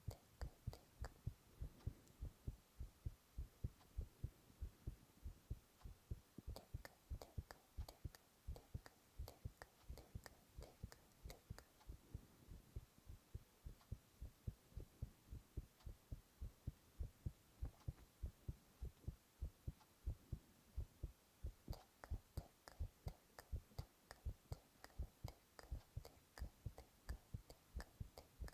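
A person's heartbeat picked up close to the microphone: a steady run of soft, low thumps at an even pace. Faint clicks come and go over it.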